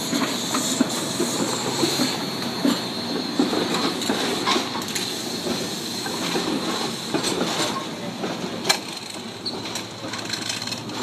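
SEPTA Kawasaki light rail trolley pulling out, its wheels clicking over rail joints and trackwork over a steady high whine, with a sharp knock about eight seconds in.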